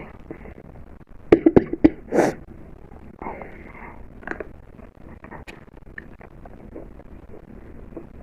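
A person coughing: a quick run of short, sharp coughs a little over a second in, then one longer cough about two seconds in.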